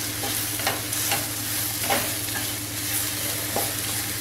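Mushrooms and masala sizzling in a non-stick kadai while a spatula stirs them, scraping against the pan a few times. The mushrooms are being fried to cook off the water they release.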